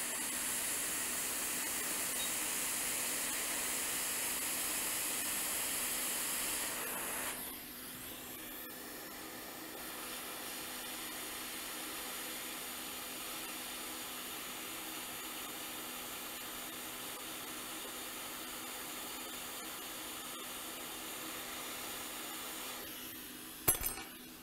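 Hot air rework station blowing steadily over the chip, a plain airy hiss that drops noticeably about seven seconds in. A couple of sharp clicks come near the end.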